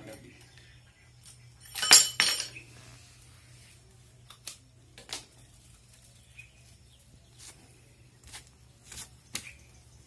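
Clinking and rattling as an electrical extension cord and its plug box are handled and uncoiled, with one louder clatter about two seconds in and a few light clicks after it.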